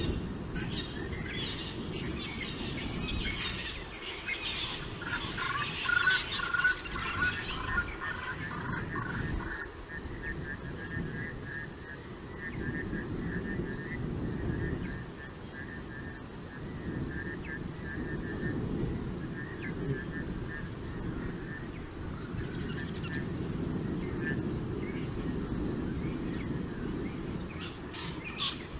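Night-time wild animal calls: a long run of rapid, evenly repeated chirps starts about five seconds in and stops past the middle, with a burst of louder mixed calls around six seconds in. A low rumbling background noise runs under it.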